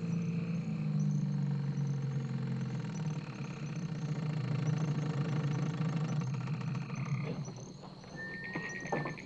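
Small boat's motor running steadily, then fading away about seven seconds in. Near the end a thin, high, steady tone comes in.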